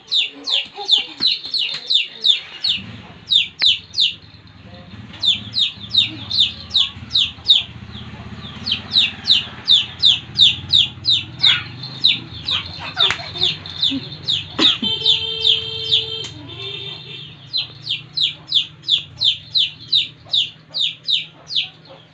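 Chicks peeping in rapid, falling cheeps, about four a second, in runs broken by short pauses: the loud, insistent peeping of chicks in distress as they are chased.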